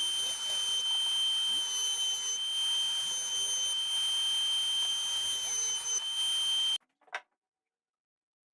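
Electric power tool motor running with a steady high-pitched whine, cut off abruptly near the end, followed by a single brief click.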